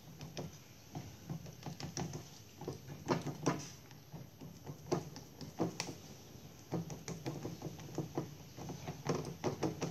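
Irregular light taps and knocks of a spatula against a steel plate as it pats and smooths a soft sweet layer of barfi.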